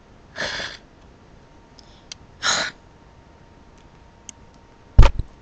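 Two short breathy vocal sounds from a person, then a loud thump near the end.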